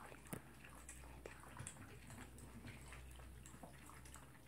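Toy poodle feeding at its bowl: faint, scattered small clicks of mouth and bowl against a low steady room hum.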